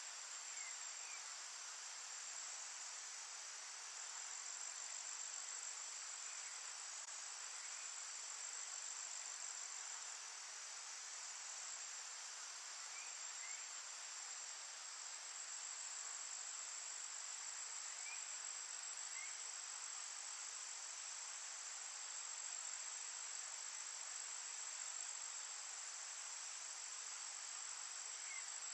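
Steady, faint insect chorus: a continuous high, even trill over a soft hiss. Faint, short chirps come in pairs about every five seconds.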